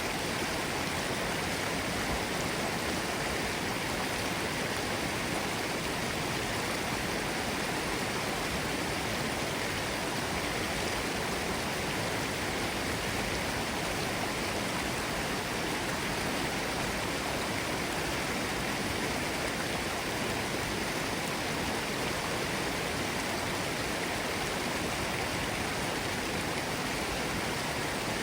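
Forest stream running over rocks: a steady, even rush of water that does not change.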